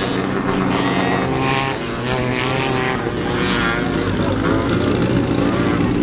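Off-road racing buggy engines running hard on a dirt short-course track, revving up and down through the corners.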